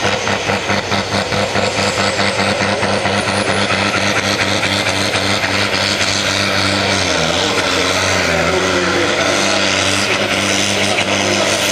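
Vintage diesel tractor engine running flat out under heavy load as it drags a weight-transfer pulling sled. The note is steady and throbbing at first, then dips and wavers about seven seconds in as the load builds.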